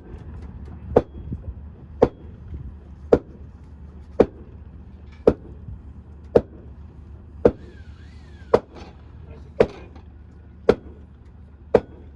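Regular hammer blows on a wooden plank, about one a second, over a steady low rumble. The blows are driving a steamed plank into shape against a wooden ship's bulwark framing.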